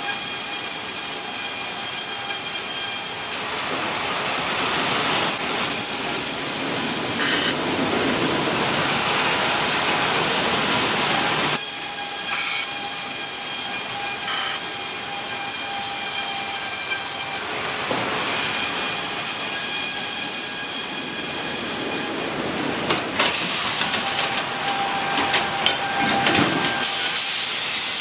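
Large sawmill machinery running: a steady, high, multi-tone saw whine that switches abruptly several times to stretches of dense, rushing noise, as of a blade cutting through timber.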